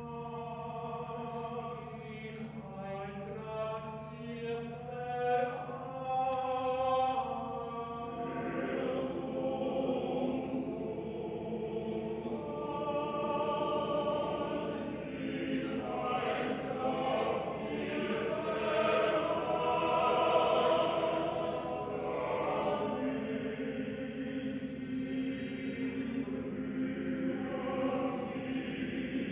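Small male chorus of tenors and basses singing in German in several-part harmony, holding chords that shift every second or so. It grows fuller and louder about six seconds in.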